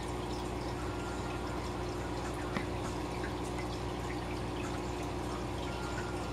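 Aquarium air bubbles rising and popping, with small drips and trickling at the water surface, over the steady hum of the tank's running equipment.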